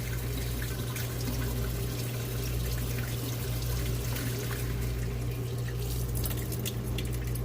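Water running steadily from a tap, over a steady low hum.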